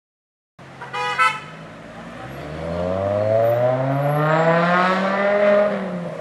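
A car horn toots briefly about a second in. Then a BMW M6 with an Eisenmann race exhaust accelerates, its engine note rising steadily in pitch and growing loud, easing off slightly near the end.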